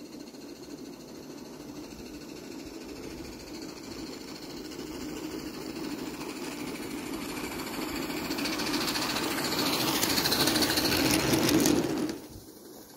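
Roundhouse Billy live-steam garden-railway locomotive approaching with rapid, rhythmic chuffing, growing steadily louder, then cutting off suddenly near the end.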